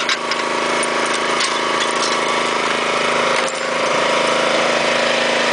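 Pulling rig's engine running steadily while PVC well casing is pulled up out of cement grout, with a few sharp cracks and snaps as the pipe breaks free and scrapes up the hole.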